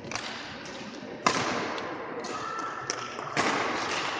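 Badminton rally: rackets striking the shuttlecock, several sharp hits spaced under a second apart, the loudest about a second in, each echoing in the large hall.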